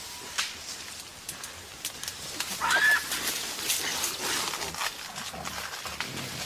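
Crackling and snapping of leaves and stems as mountain gorillas pull at and climb through forest vegetation, with one short rising-then-falling animal call a little under three seconds in.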